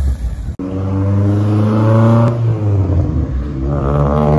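A car engine runs loudly and revs, its pitch climbing, dipping about two to three seconds in, and climbing again near the end.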